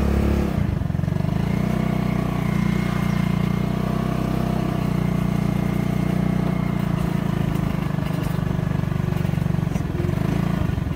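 Small motorcycle engine running steadily under way, heard from on the bike.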